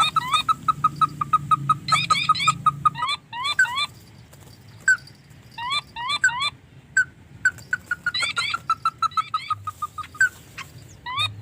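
Bird calling in bouts: rapid runs of short clipped notes alternating with quick upswept chirps, breaking off for a second or two and starting again several times.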